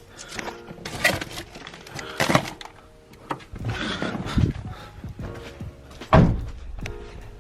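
A few knocks and thumps, the loudest about six seconds in and followed by a low rumble, over background music.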